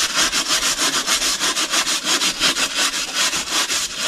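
A metal mesh scouring pad scrubbed hard back and forth on a blackened metal pan, a steady rasping at about four strokes a second, scouring off the burnt-on black residue.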